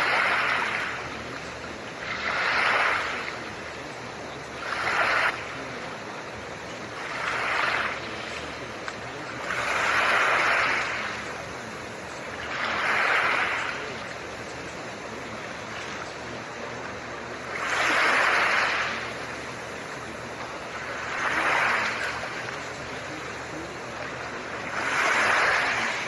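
Steady blue-noise hiss under soft ocean waves, which wash in as nine short swells a few seconds apart.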